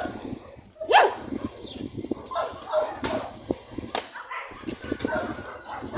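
Dogs barking in short bursts, the loudest bark about a second in and more about three and four seconds in.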